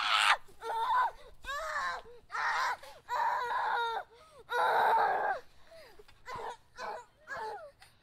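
A child's voice yelling and screaming in a string of short, high-pitched cries, the longest and loudest a little past the middle.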